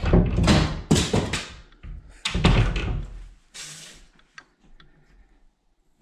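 Door on freshly lubricated hinge pins swung back and forth twice, with swishes and light knocks and no squeak from the hinges. A short hiss follows, then a few faint clicks.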